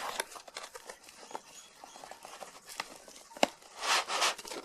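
A cardboard box being cut and pried open by hand: scattered light taps and scrapes, a sharp click about three and a half seconds in, then a short burst of rustling tearing near the end.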